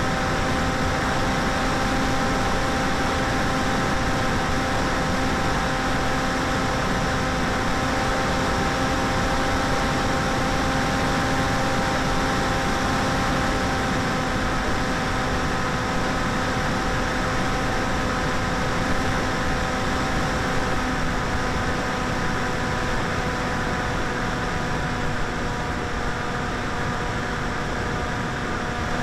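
Electric motor and propeller of a 900mm Popwing flying wing running at a steady throttle. It makes an even whine with several higher tones stacked on it, over a constant rush of wind noise.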